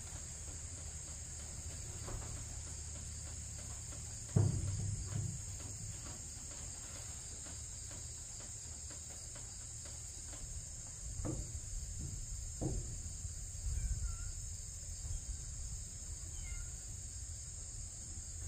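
Steady high-pitched insect chorus, with a few soft knocks and scrapes as epoxy is worked from its tub with a plastic spatula on the aluminum canoe hull; the loudest knock comes about four seconds in.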